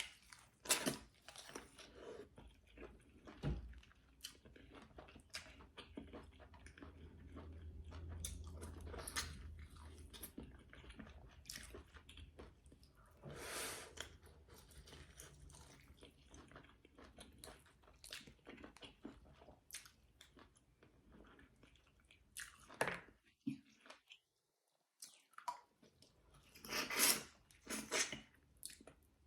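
Close-miked chewing of egusi soup with fufu and meat: wet mouth clicks and smacking, with occasional crunches and bites.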